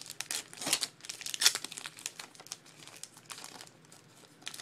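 Plastic wrapper of a pack of baseball trading cards being torn open and crinkled, a dense run of crackling most intense in the first two seconds, then lighter rustling.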